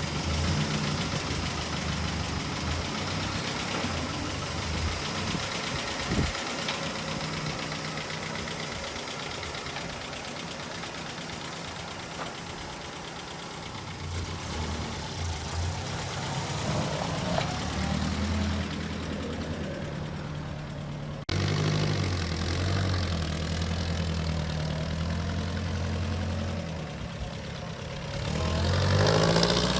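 1962 Jeep M170's four-cylinder engine running as the Jeep is driven, rising in pitch and loudness near the end as it revs up.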